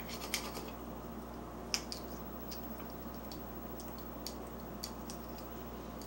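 Scattered faint clicks and taps of African grey parrots' beaks picking at mango in plastic food cups, over a steady low hum.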